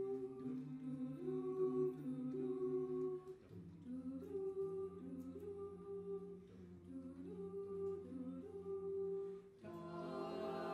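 Mixed a cappella vocal ensemble of eight singers singing wordless held backing chords, the harmony moving every second or so. Near the end the voices briefly drop away, then come back fuller and brighter.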